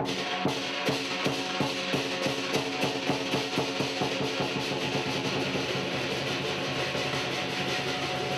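Lion dance percussion: a drum beating a steady run of strokes over a constant wash of cymbals and ringing tones.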